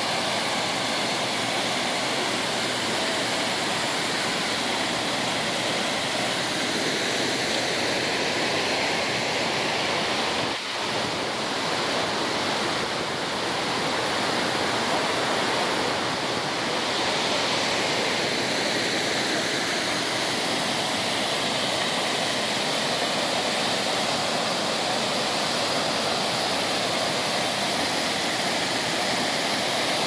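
Waterfall: several falls plunging into a rock pool, a steady, unbroken rush of falling water.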